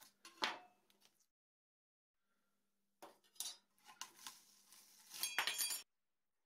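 Quiet handling of a thin cut aluminium panel and a steel scraper on a wooden spoil board: a few light metallic clicks and tape being peeled, then a short ringing metallic clatter about five seconds in.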